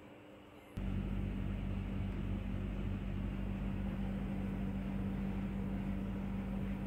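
A steady mechanical hum with a constant low drone switches on abruptly just under a second in and keeps running evenly.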